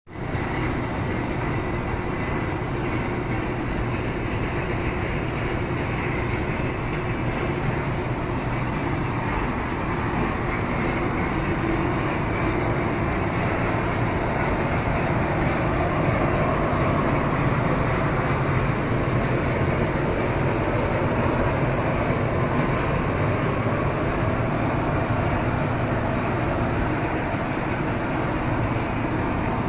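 Boiler-room machinery running with a steady, unbroken noise and a faint hum underneath.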